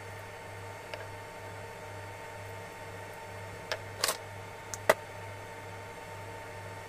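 A handful of light clicks and taps from a thin metal wire part and small metal pieces being handled: a faint one about a second in, then several bunched between about three and a half and five seconds, the sharpest just before five. Under them runs a steady low hum.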